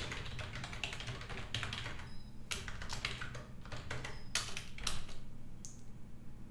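Typing on a computer keyboard: a quick, uneven run of keystrokes that stops about five seconds in.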